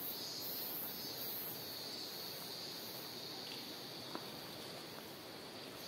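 Cicadas singing in chorus: a steady high buzz with a higher, shrill pulsing song over it that swells and fades about once a second.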